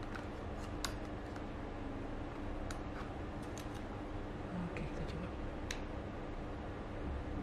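Scattered light clicks and taps from handling a Sony Alpha 7S II mirrorless camera while swapping in another battery and trying to switch it on, over a steady low hum.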